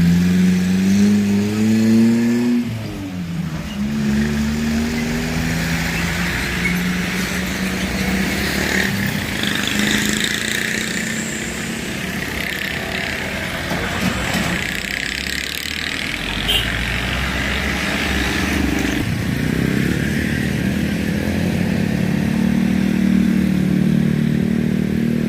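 Road traffic with motorcycles and cars passing close by. Engines rise in pitch over the first two seconds, and one passes with a sharp drop in pitch about three seconds in. More engines build up again near the end.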